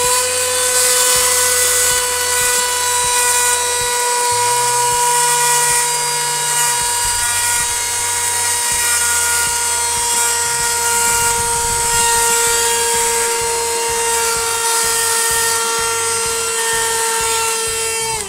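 Small battery-powered portable vacuum cleaner's motor running after repair: a steady high whine with an airy hiss. It spins up at the start and cuts off at the end, the pitch dropping as it winds down.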